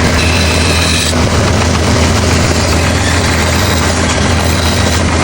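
A motor running steadily with a low hum and a broad noisy rush over it.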